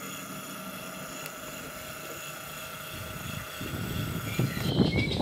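A steady mechanical drone made of several fixed tones, which cuts off suddenly near the end. From about three and a half seconds, gusty wind buffets the microphone and grows louder, and a couple of brief bird chirps come in near the end.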